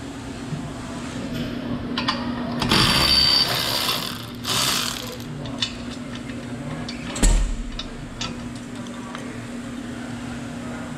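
Cordless electric ratchet whirring in two short runs, about two and a half and four and a half seconds in, turning the bolts of an exhaust pipe flange. Light metal clicks follow, then a single sharp thump about seven seconds in, over a steady hum.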